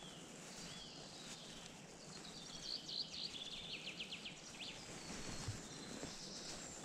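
Faint outdoor ambience with a small bird singing: a short high chirp at the start, then a quick run of short high notes from about two to five seconds in.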